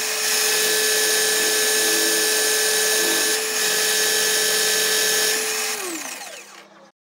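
Pillar drill running with a steady whine, spinning an oak bottle opener on a bolt-and-plate jig for sanding. Near the end the motor is switched off and the whine falls in pitch as the chuck spins down.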